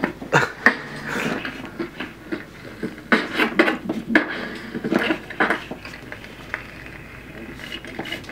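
Irregular clattering and scraping as a 1983 Disco Kid toy record player and its vinyl record are handled, in short uneven bursts that thin out over the last couple of seconds; no music is playing yet.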